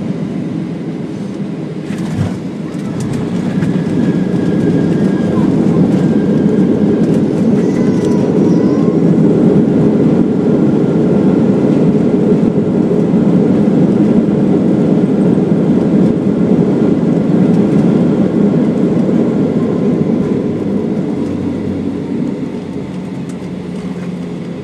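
Boeing 737 jet engines and landing rollout heard from inside the cabin, a heavy roar as the airliner decelerates on the runway. A thump comes about two seconds in, the roar builds over the next couple of seconds, holds, and then eases off near the end as the plane slows.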